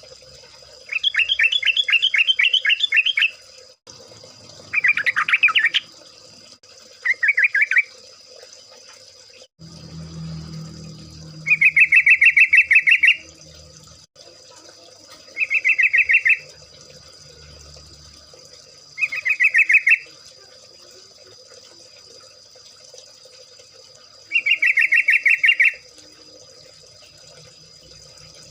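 Yellow-vented bulbul (trucukan) singing: seven short bursts of rapid bubbling chatter, each one to two seconds long, with pauses of a few seconds between them.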